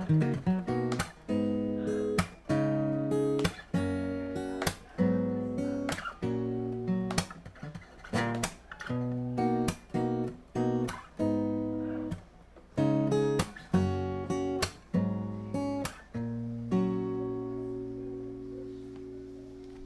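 Shelter Celtic 100 dreadnought acoustic guitar strumming chords in a steady rhythm, ending on a final chord that rings out and fades over the last few seconds.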